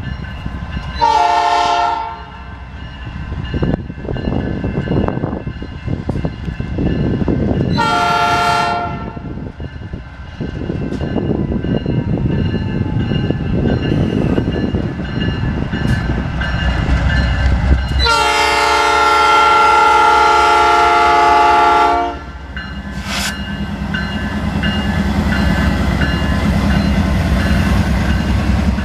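Freight train's diesel locomotive sounding its air horn three times: two short blasts about seven seconds apart, then a long blast of about four seconds. Beneath the horn, the slow-moving train rumbles past.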